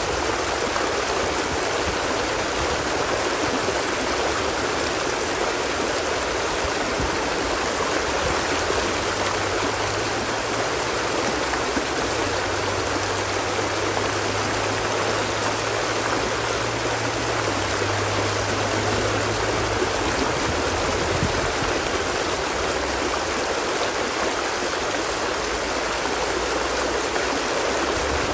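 Stream water flowing steadily.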